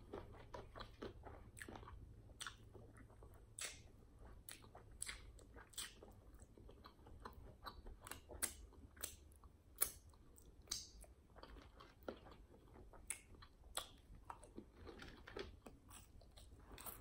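Close-miked chewing of fried chicken wings: irregular wet smacks and mouth clicks with occasional crunches.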